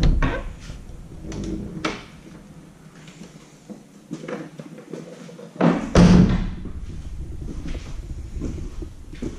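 Interior wooden door opened by its knob, the latch clicking sharply at the start, followed by a few light knocks. About six seconds in comes a loud thump, the loudest sound, then low rumbling and small knocks.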